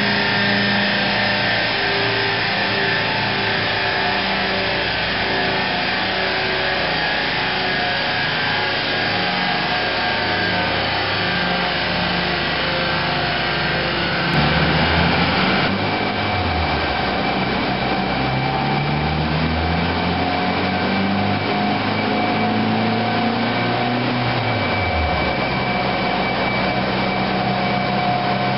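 Turbocharged 2.0-litre 16-valve four-cylinder engine of an Alfa Romeo 145 running hard on a chassis dyno. Its revs hold roughly level at first; in the second half they climb steadily for several seconds, then fall away sharply near the end.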